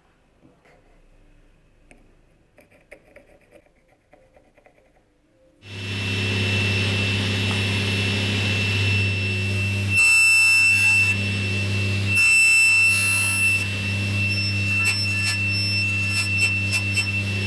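Near-quiet at first, then a stationary woodworking machine with a fence-guided table switches on about six seconds in and runs with a steady hum and a high whine. Twice it grows louder and harsher as a wooden block is fed through and cut. The machine shuts off near the end.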